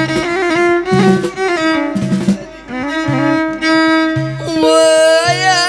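Instrumental break in Middle Atlas Amazigh popular music: a violin plays a sliding, ornamented melody over a repeating low bass pulse.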